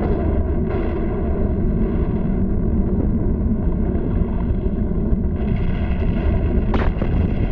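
Cartoon sound effect of an erupting volcano: a continuous heavy, low rumble, with one sharp crack near the end.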